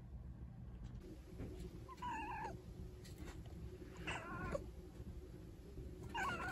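Domestic cat meowing three times, about two seconds apart, each a short call of about half a second.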